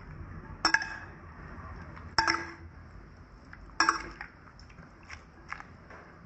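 Metal spoon clinking against a ceramic plate while mixing a salad: three ringing clinks about a second and a half apart, followed by several lighter taps.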